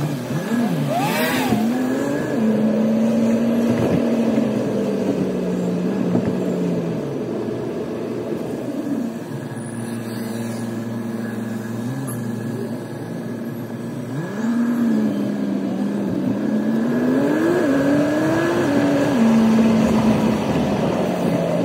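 Car engine and road noise heard from inside the cabin while driving. The engine pitch climbs as the car accelerates and drops back in steps as it shifts up, several times over.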